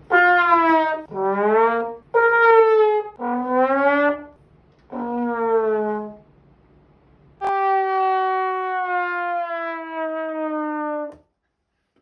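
Comedic trombone-style 'wah-wah' sound effect: five short notes that each bend downward, then after a pause one long, slowly sagging note.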